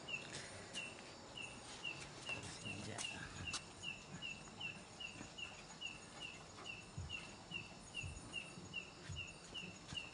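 An insect chirping steadily and evenly, about three short chirps a second, with a few faint clicks and soft knocks.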